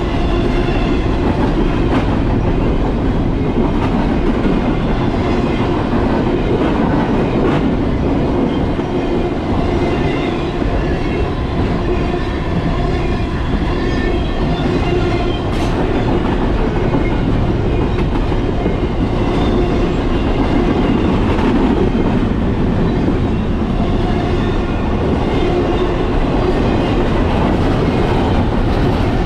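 Steady rushing wind and road noise from an e-bike moving at speed, with a faint steady hum underneath.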